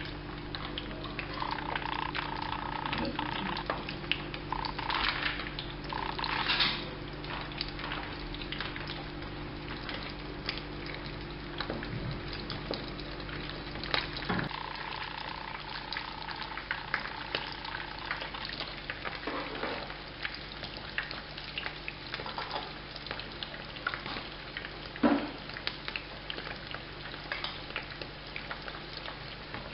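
Mince-stuffed bitter gourds shallow-frying in hot oil in a frying pan: a steady sizzle and crackle of bubbling oil, with a few sharp knocks as the gourds are placed and moved, the loudest about 25 seconds in.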